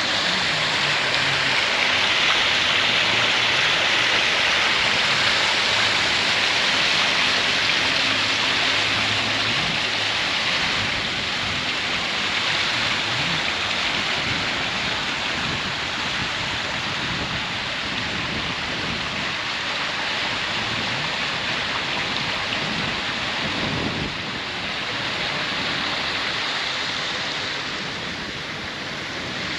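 Steady rush of splashing water.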